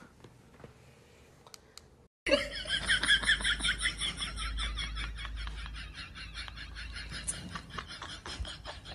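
A person laughing in quick, continuous giggles, starting abruptly about two seconds in after a near-quiet opening.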